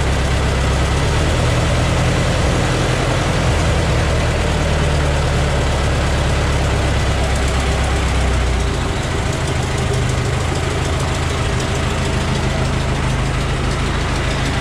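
Ford Model T's four-cylinder flathead engine idling steadily, warming up just after a cold start. A bit more than halfway through, the deepest part of its note drops away and it runs slightly quieter.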